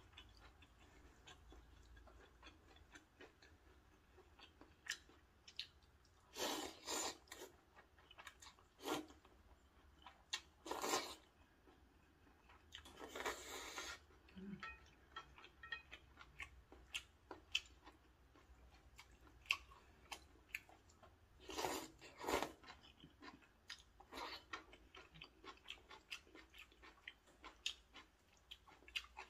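Someone eating rosé maratang noodles: several short, loud slurps of noodles and broth, with quiet chewing and small clicks between them.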